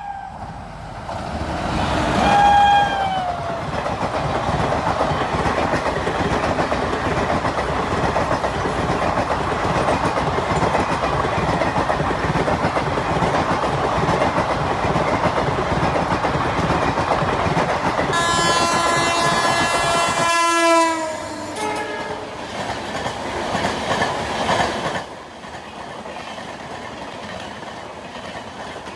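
Toy train running, a steady rattling of its motor and wheels. A horn-like tone sounds about two seconds in and again about eighteen seconds in, sliding down in pitch as it ends each time. The rattling drops to a quieter level near the end.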